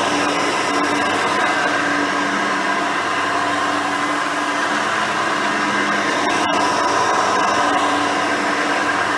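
Hoover Elite 350 upright vacuum cleaner running steadily with its brush roll turning: a constant rush of air with a steady hum and whine.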